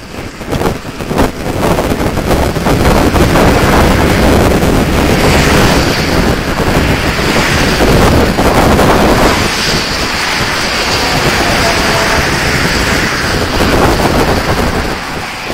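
Wind buffeting a phone's microphone, mixed with the rush of road traffic passing on the carriageway alongside; the noise swells for several seconds in the middle and then eases a little.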